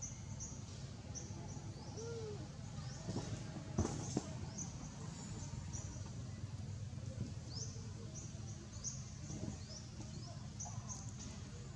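Birds chirping: a steady run of short, high, rising chirps repeating every half second or so over a low steady background hum, with two sharp clicks about four seconds in.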